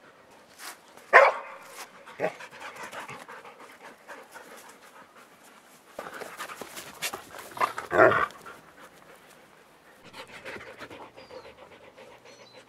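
Dogs panting hard and steadily after rough play, with two brief loud sudden sounds, one about a second in and another around eight seconds in.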